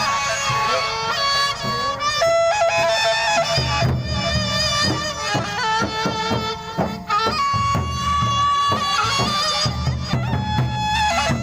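Sasak gendang beleq ensemble playing: a reedy wind instrument carries a held, ornamented melody over large drums. The drums come in heavily about three and a half seconds in.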